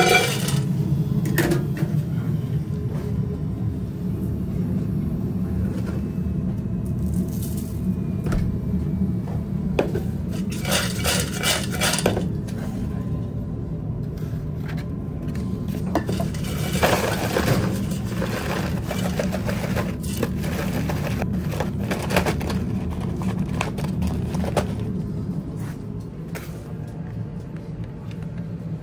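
Kitchen clatter: a wire fryer basket knocking on a stainless steel bowl as fries are tipped in, then scattered metal clinks and scrapes, over a steady low hum.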